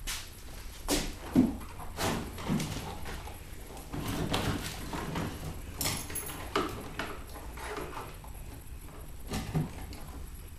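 Irregular hollow knocks, bumps and scuffs of a plastic Little Tikes Cozy Coupe ride-on toy car as a grown man squeezes into it, with shoes scuffing on a concrete floor.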